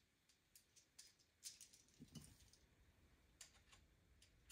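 Near silence with a few faint, scattered clicks of small plastic and metal robot parts being handled while a VEX wheel is fitted onto its shaft.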